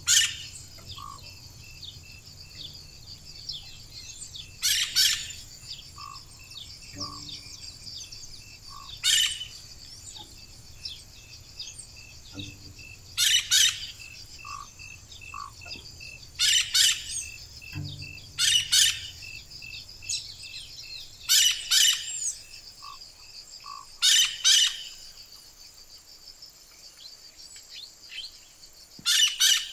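Tropical forest ambience: a steady high insect chorus with a fast ticking in it, over which loud short animal calls ring out every few seconds, often in quick pairs.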